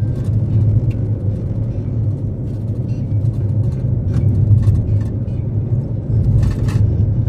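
A Suzuki Karimun Wagon R driving on the road: a steady low rumble of road and engine noise, with scattered light knocks and rattles.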